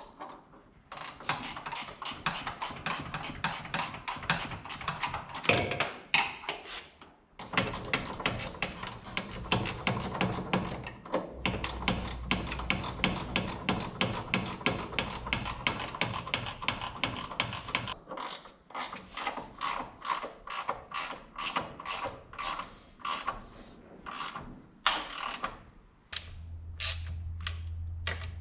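Hand socket ratchet clicking through repeated quick strokes in bursts with short pauses, as bolts on the front suspension at the top of the strut tower are tightened.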